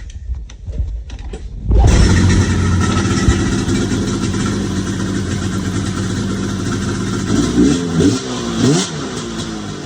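Snowmobile's 800 cc two-stroke twin with twin pipes catching about two seconds in and running at a steady idle, with a few quick throttle blips near the end before settling back. It idles as it should now that the too-tight drive belt has been loosened.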